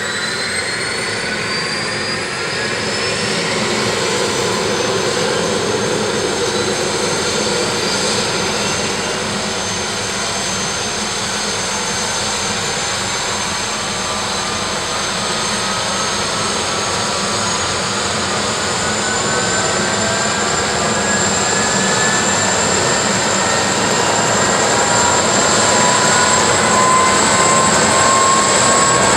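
Bell 412 helicopter's twin turboshaft engines starting up: a turbine whine climbing steadily in pitch as the rotors spin up, growing louder toward the end.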